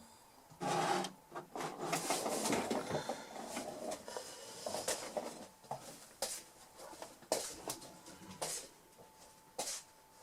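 Irregular rustling and clattering of small objects being handled and moved about, as in rummaging through parts and tools for a wire.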